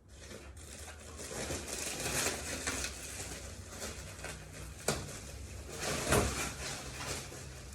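Handling noises from someone working at a vending machine to get it open: irregular rustling and rattling, with a sharp knock about five seconds in and a heavier knock about a second later.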